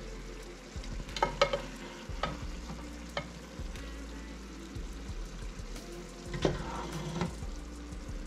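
A cooking utensil scraping and knocking against a pan as an eggplant, pork and tofu stir-fry is scooped out. There is a cluster of clinks about a second in, single knocks around two and three seconds, and another cluster past the middle.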